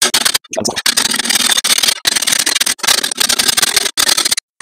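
Wooden doming mallet rapidly tapping a sheet-metal repair panel held over a dolly in a bench vise, forming an internal radius. The blows come in quick runs broken by short pauses.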